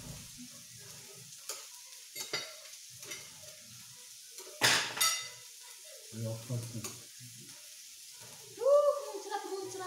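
Meat sizzling on the hot plate of a tabletop raclette grill, a steady hiss, with chopsticks and utensils clicking against the plate and one sharp clatter about halfway through. A short voice sound comes near the end.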